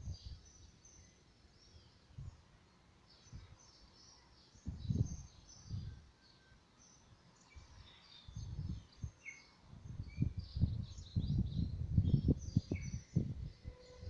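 Star tortoise's hind legs scraping and scooping damp soil as it digs its nest hole for laying eggs. The scratching comes in short bursts, a few at first and then almost without pause from about ten seconds in. Birds chirp in the background.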